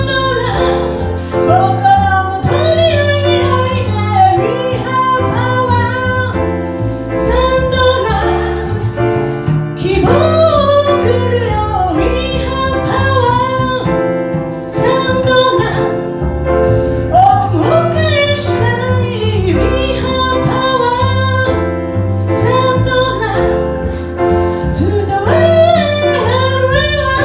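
A woman singing a slow song in phrases, accompanied by piano and bass.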